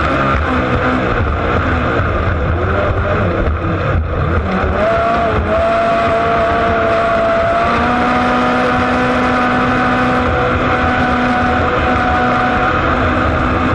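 Cracker box racing boat's Ford V8 engine running hard at speed, heard onboard together with the rush of the hull and spray on the water.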